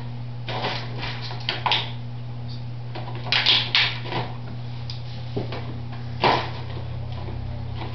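Dog playing with a wooden bottle puzzle toy: the bottles knock and rattle against the frame in a few short, irregular bursts as the dog noses them around, the loudest a little before the middle and another about three-quarters of the way through.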